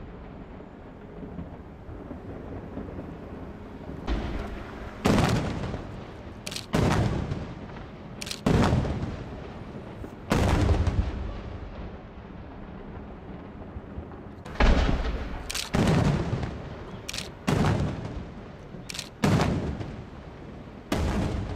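Aerial firework shells bursting overhead: about a dozen sharp booms, some in quick pairs, each trailing off in an echoing rumble. The first few seconds are quieter, before the bursts begin.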